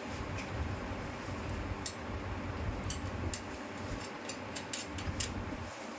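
Scattered light metallic clicks and ticks as a washer and nut are fitted by hand onto the bicycle's front axle, over a steady low hum.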